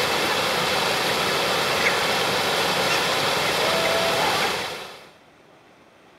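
Swollen stream rushing out of concrete culverts and pouring over a small weir, a steady loud rush that fades out about five seconds in.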